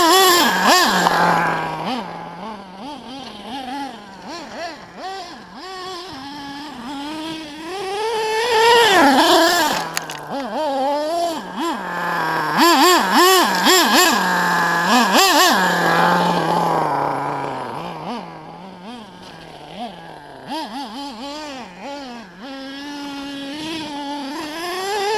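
HPI Trophy Truggy 4.6 nitro RC truggy's small two-stroke glow engine revving up and down as it is driven over gravel, its pitch rising and falling with the throttle. It swells loud several times and drops fainter between, as the truggy comes near and moves away.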